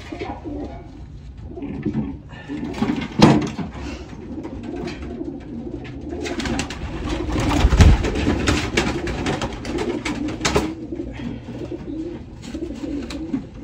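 Racing pigeons cooing in a loft, with a sharp knock about three seconds in and a stretch of clattering and rustling from about six to eleven seconds.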